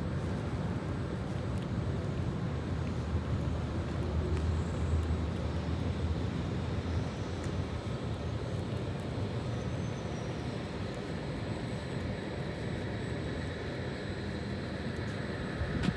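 Yellow Berlin U-Bahn small-profile train standing at the platform, giving off a steady low hum and rumble. A faint, high, steady whine grows stronger in the second half.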